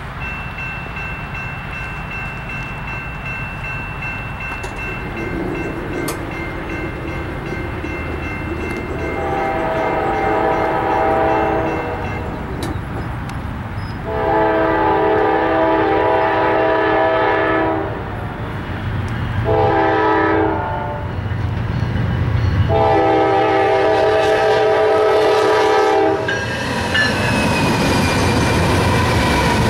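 Norfolk Southern diesel freight locomotive's air horn sounding the grade-crossing signal: two long blasts, a short one and a final long one. A crossing bell rings in the background. Near the end the locomotives pass close by with engine rumble and wheel noise on the rails.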